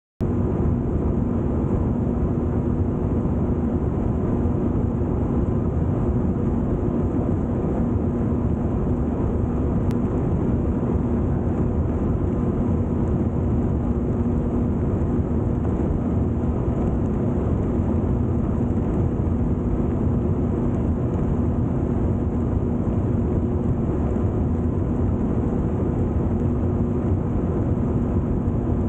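Personal watercraft engine running steadily at speed: a constant drone with no change in throttle, over the rush of spray and wind.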